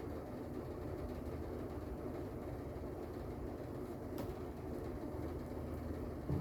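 Steady low background rumble with a faint click about four seconds in.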